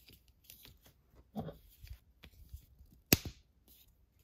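Hard plastic toy parts being handled, with one sharp click about three seconds in as a plastic claw arm snaps into place in the action figure's claw pack.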